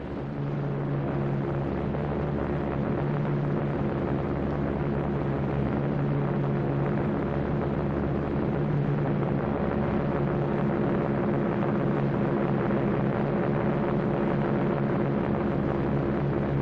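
Steady low drone of propeller aircraft engines, a deep hum that slowly swells and fades.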